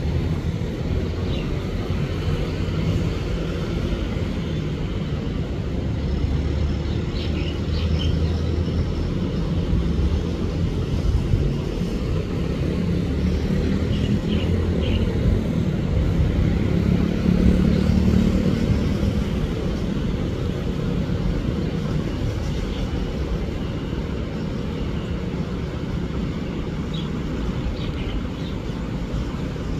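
Steady road traffic, mainly motorcycles and cars passing, with a low rumble that swells about halfway through. A few short high chirps come through now and then.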